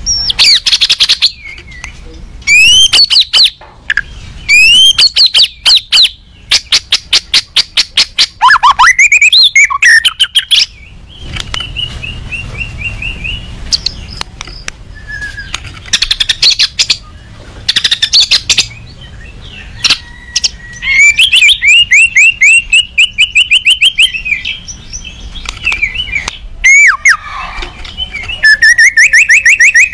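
White-rumped shama (murai batu) singing loudly in an agitated, aggressive mood: bursts of rapid-fire repeated notes, upward-sweeping whistles and short trills, phrase after phrase with brief pauses between them.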